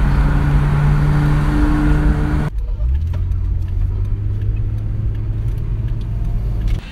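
Car driving, heard from inside the cabin: a steady engine hum under road and wind noise. About two and a half seconds in, the louder rush cuts off suddenly, leaving a quieter, lower engine hum.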